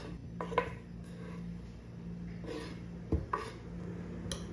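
A few light knocks and scrapes of a metal spoon against a wooden cutting board and a ceramic bowl as grated boiled egg is scraped into the bowl, the strongest knock about three seconds in, over a steady low hum.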